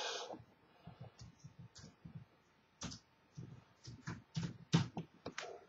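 Typing on a computer keyboard: about twenty key clicks at an uneven pace.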